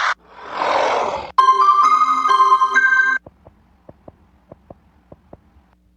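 A string of horror sound effects: a noisy roar that swells up and cuts off, then a held, clashing chord of several steady tones for under two seconds, then faint irregular clicks.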